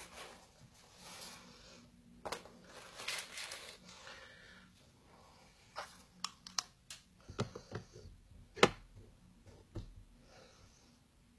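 Handling noise close to a phone's microphone: rustling and rubbing, then a scatter of sharp clicks and knocks, the loudest a single knock a little past two-thirds of the way through.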